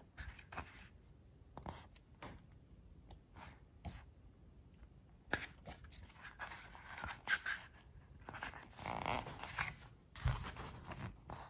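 Thick pages of a photobook being turned and fanned by hand: soft paper rustles and flicks, busiest in two spells in the second half, with a low soft bump near the end.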